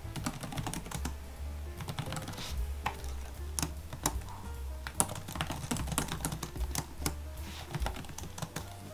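Typing on a laptop keyboard: an irregular, quick run of key clicks.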